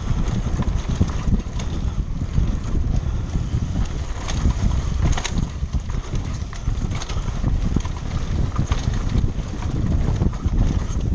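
Wind rushing over the microphone, with a steady heavy rumble and irregular clattering knocks, as when moving fast over rough ground.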